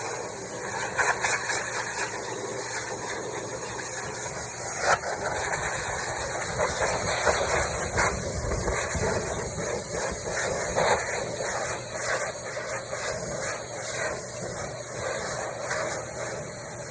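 High-velocity pet hair dryer running, a steady rushing hiss of blown air with frequent brief surges.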